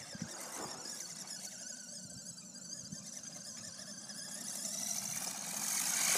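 Vintage Tamiya Grasshopper RC buggy's stock electric motor and gears whining faintly in the distance, growing louder over the last second or two as the buggy comes back toward the microphone.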